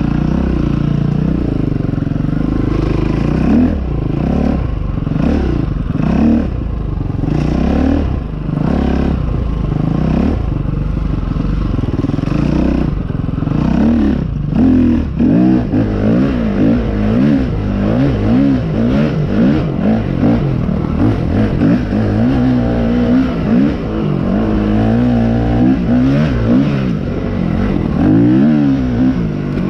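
Off-road motorcycle engine running under load on a trail, its revs rising and falling with the throttle, quickly and often in the second half.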